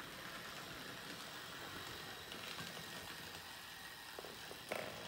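Hornby D49/1 OO-gauge model locomotive with a ring-field motor, running along the track with a faint, steady running sound, and one sharp click near the end.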